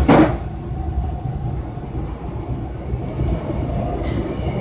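Toronto subway train on Line 2 pulling out of a station, heard from inside the car: a steady low rumble of the car running on the rails. A single sharp knock sounds just after the start.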